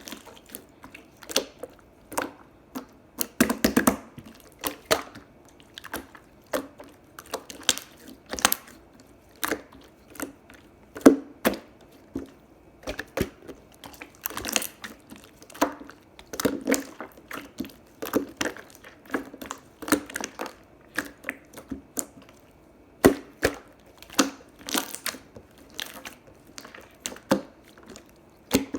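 Clear slime being squeezed, pressed and poked by hand, giving irregular sharp clicking pops and squelches, about one or two a second with a few quicker flurries.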